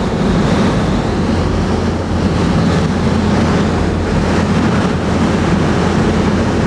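Steady drone of an aircraft's engines heard from inside the cabin: a low hum under an even rushing noise.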